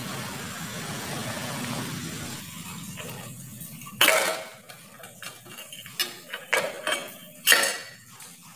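Stainless steel idli plate knocking against the steel idli steamer and its central stand as it is stacked: a loud metal clank about four seconds in, a few lighter clinks, then a second loud clank about seven and a half seconds in. A steady hiss fills the first few seconds.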